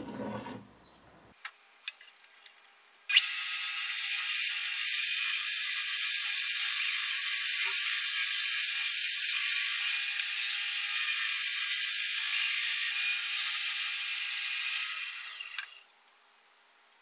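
Bandsaw cutting a wooden hatchet-handle blank: the saw comes in sharply about three seconds in, a steady high whine under a rasping cut whose level wavers as the wood is fed, and it dies away near the end. A few light clicks come before it.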